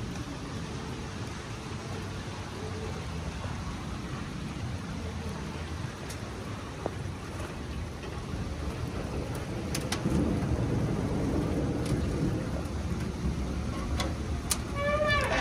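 Steady rain hiss over a low rumble, with a few faint ticks in the second half.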